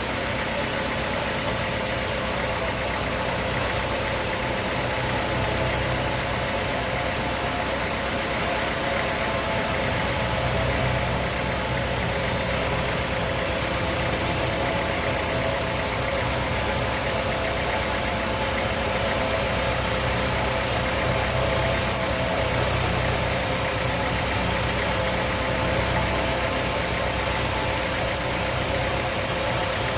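Sawmill machinery running steadily, a constant motor drone with a steady mid-pitched tone and a strong high hiss, unchanged throughout.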